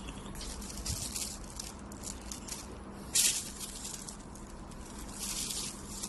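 Horizontal flow-wrap packaging machine running: a steady low hum under irregular hissing, rustling bursts, with one short louder burst about three seconds in.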